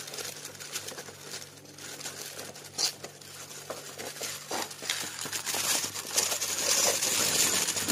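Clear plastic protective film being peeled off a corrugated plastic roofing sheet: irregular crinkling and crackling, louder near the end.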